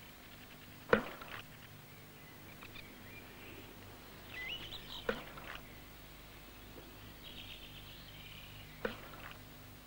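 Faint birds chirping over a steady low hum, broken by three sharp clicks: about a second in, midway, and near the end.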